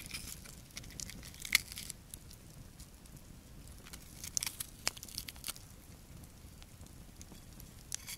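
A knife cutting and coring a red bell pepper: scattered crisp snaps and tearing of the pepper flesh, sharpest about a second and a half in and again around the middle.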